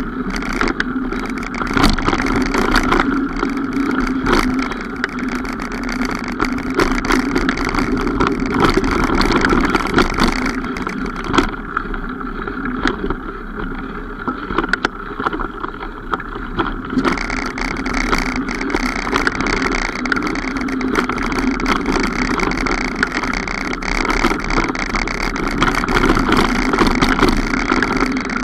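Mountain bike ridden along a trail: steady rolling and rushing noise with frequent clicks and rattles as the bike goes over bumps. The higher hiss drops away for a few seconds mid-way.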